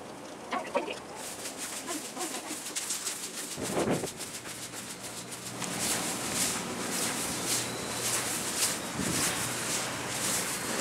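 Footsteps walking on paving stones, about two steps a second, from about six seconds in. Before that come short pitched sounds from a fast-forwarded stretch of audio.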